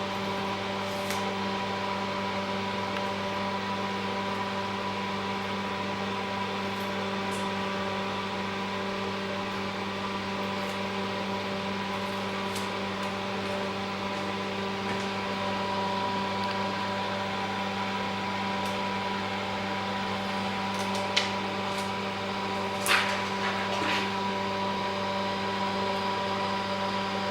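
Steady electrical hum of workshop equipment, a mains-frequency drone with several fixed tones under a light hiss. A few light clicks and taps come near the end.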